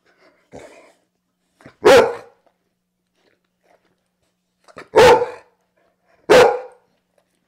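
A dog barking three times, short sharp barks: one about two seconds in, then two more close together near the end.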